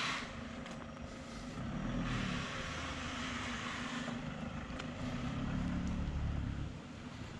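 Car engine running with a steady low rumble and road hiss that swells from about two to four seconds in.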